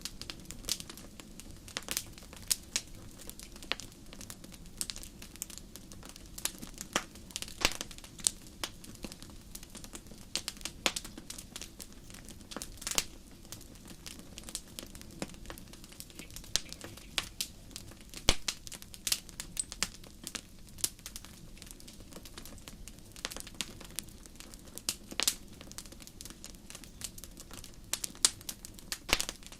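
Wood fire burning in a fireplace, crackling with irregular sharp pops and snaps several times a second over a low steady rumble of the flames.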